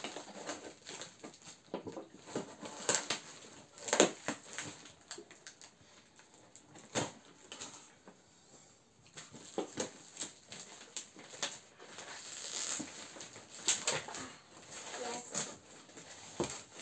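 A cardboard box being cut open with scissors and unpacked by hand: irregular rustling, scraping and knocks of cardboard and packaging, with sharper knocks about four and seven seconds in.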